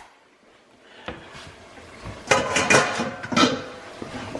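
Stainless steel pots and bowls clanking and rattling against each other as they are pulled out of a lower kitchen cabinet. The clatter starts about a second in and is loudest in the middle.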